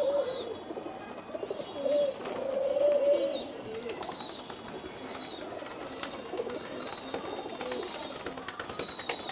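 Domestic pigeons cooing, several coos in the first few seconds and fainter ones later, over the light tapping of beaks pecking feed off a concrete floor.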